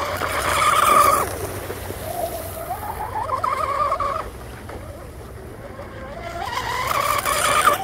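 Electric motor of a 34-inch RC outrigger boat on 6S whining at speed, its pitch rising and falling with the throttle, with the hiss of spray off the hull. It is loudest about a second in and again near the end.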